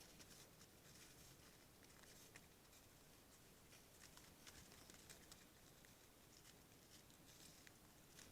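Near silence: a faint steady hiss with scattered soft ticks and light rustles.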